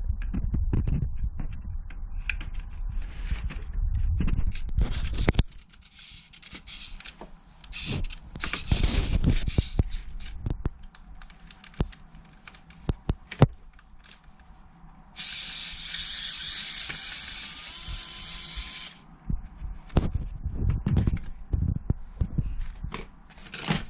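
Clicks, knocks and rattles of tools and parts being handled while a wall-mounted air conditioner is worked on. Past the middle comes a steady hiss of about four seconds that starts and stops abruptly.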